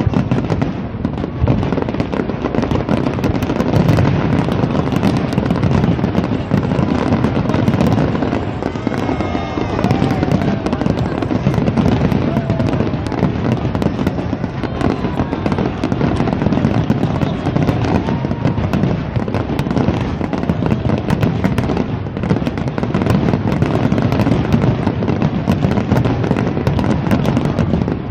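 A fireworks display firing a continuous, dense barrage of aerial shells: overlapping bangs and crackle with no break.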